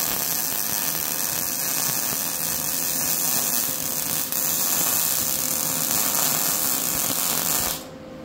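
MIG welding arc from a Lincoln Electric Weld Pack 175 HD running argon/CO2 shielding gas, laying a bead on steel angle iron: a loud, steady arc noise with a brief break about halfway, cutting off near the end. The welder thinks it sounded good, a sign the machine settings are right.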